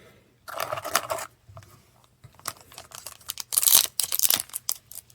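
Foil booster-pack wrapper being torn open and crinkled by hand, in irregular rustling bursts, the loudest about one second in and again near four seconds in.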